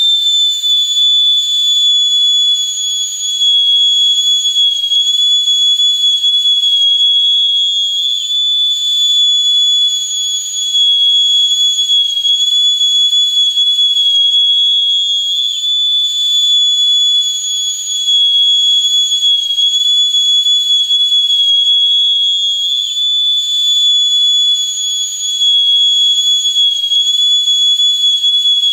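Steady high-pitched whistling tone with a fainter higher overtone and a faint hiss above it, wavering slightly in pitch and dipping briefly in loudness every few seconds. It is a rendering of the 'vibration sound' of the astral ship heard in out-of-body states.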